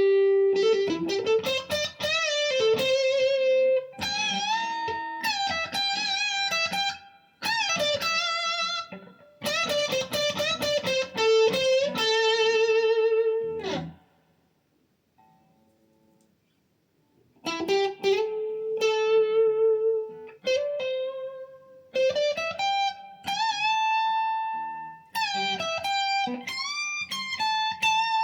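Electric guitar with a Lollar High Wind Imperial bridge humbucker, played through a Blackstar ID Core 40 amp's crunch channel with light reverb and recorded through a phone's microphone. It plays single-note lead lines with string bends and vibrato, stops for about three seconds halfway through, then goes on.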